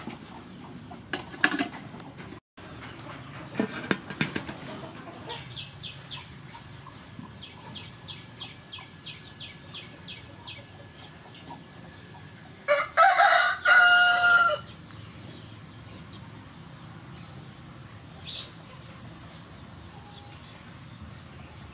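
A rooster crowing once, about thirteen seconds in, the loudest sound. Near the start, a couple of metal knocks as an aluminium steamer tier is set onto the steaming pot, and in the middle a run of quick, evenly spaced high chirps.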